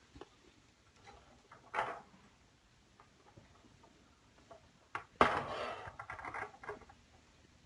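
Kitten playing with cat toys on a hard floor: a short rustle about two seconds in, then, near the end, a sharp knock and about a second and a half of clattering and rattling as a toy is knocked about.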